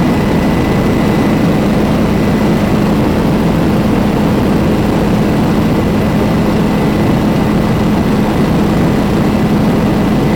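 Tour helicopter's rotor and engine heard on board in flight: a loud, steady drone with a low hum and a thin, constant high whine.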